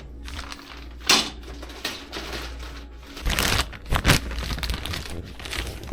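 Handling noises as plastic pipe hangers are picked up and sorted: a few short knocks and rustles, the loudest about a second in and around three to four seconds in, over a steady low hum.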